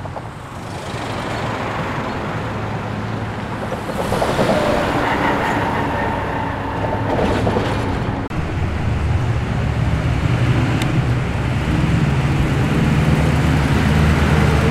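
V8-type muscle car engines running as the cars drive past: a steady deep exhaust rumble that grows louder over the second half.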